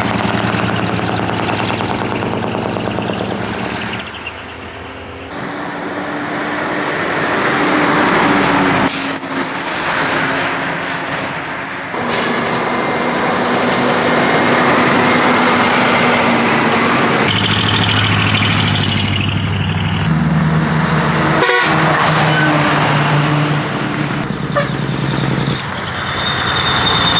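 Decorated trucks driving off one after another: diesel engines running, with long horn blasts and hiss from air brakes.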